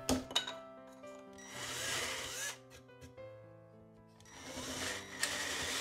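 Power drill boring quarter-inch holes through a pine bar, running in two short bursts about three seconds apart, over background music with held notes.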